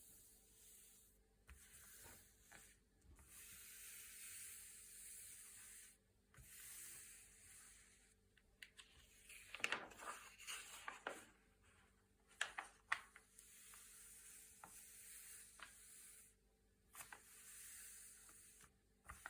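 Thick glossy paper pages being handled and turned: soft rubbing and sliding of paper, quiet overall, with a louder crinkling page turn about ten seconds in and a few sharp paper snaps just after.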